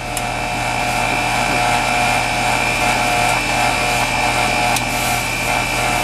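Split-system heat pump outdoor unit running in cooling mode: a steady compressor hum and fan noise with a constant high whine.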